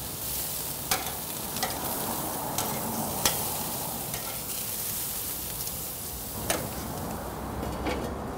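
Yogurt-marinated chicken sizzling on the grates of a hot gas grill: a steady hiss broken by scattered sharp crackles and clicks.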